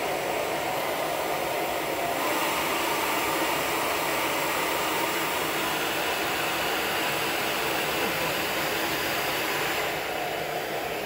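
Red hand-held hair dryer running steadily, an even rush of blown air.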